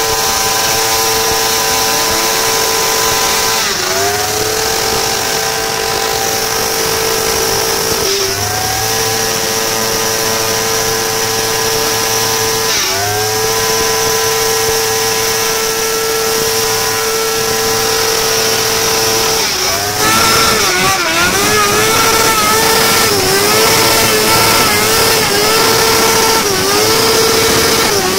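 Motorcycle engine held at high revs during a rear-tyre burnout: a steady high pitch that dips briefly and climbs back every few seconds. About two-thirds of the way through it gets a little louder and the revs waver up and down quickly.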